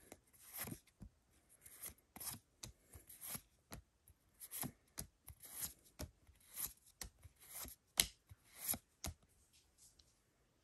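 Pokémon trading cards slid one at a time from the front of a freshly opened pack's stack to the back: a quiet series of short card swishes and flicks, about two a second and unevenly spaced.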